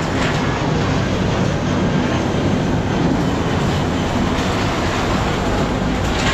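Heavy scrapyard machinery, a hydraulic scrap metal shear and its material-handler crane, running steadily with a deep, even engine and hydraulic pump hum. A light metallic knock comes near the start and another near the end.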